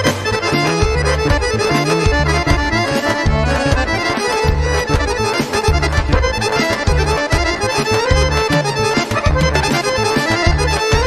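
Accordion-led Bulgarian folk-band music playing a Gypsy kyuchek dance tune, over a steady beat in the bass.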